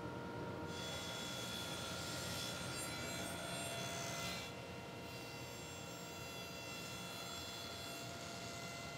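Table saw running with a steady motor whine while a miter sled pushes frame stock through the blade. The cutting noise eases off and the sound drops a little about four and a half seconds in.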